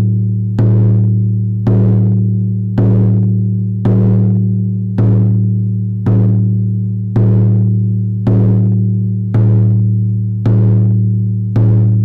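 Hand-held frame drum struck with a padded beater in a slow, steady beat, a little under one stroke a second, each deep boom ringing on into the next: shamanic journey drumming.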